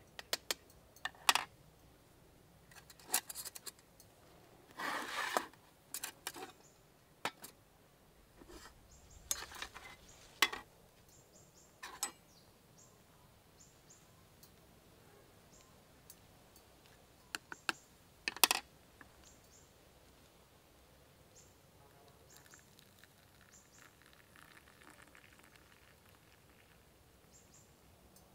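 Irregular light clicks and knocks of objects being handled, with a short rustle about five seconds in.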